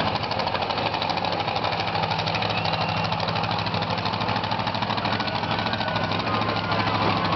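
Grave Digger monster truck's supercharged V8 running at low speed, with an uneven, rough beat: it is misfiring on a cylinder.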